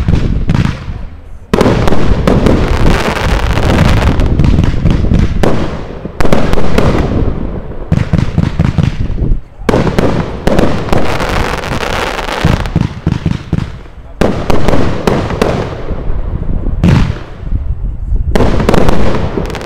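Gaoo Obsession firework battery firing: rapid volleys of launch thumps and bursts with crackling tails, coming in loud waves that start again every few seconds.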